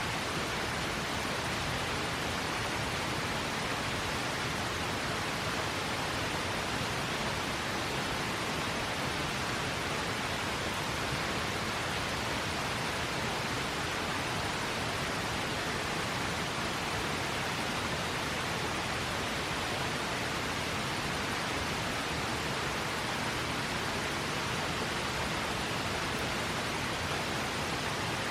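Steady rushing of a river, an even hiss without breaks or changes.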